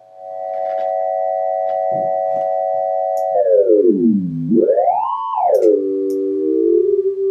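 Amplitude-modulated sine tone from a Patchblocks synth emulator: a carrier sine multiplied by a slower sine, heard as a steady tone with close sidebands. About three seconds in, the carrier pitch slides down low, swoops up high and settles lower. Near the end the sidebands draw together into a single tone as the modulating frequency is turned down.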